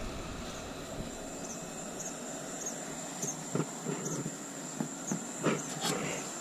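Steady background hiss with a thin high whine and faint regular high chirps, broken by a few light knocks and clicks about halfway through and near the end.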